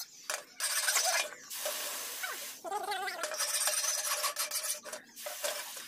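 Hot steel cleaver blade being quenched in a tank, sizzling and bubbling in several bursts as it is plunged and moved through the liquid, some bursts with a warbling whistle.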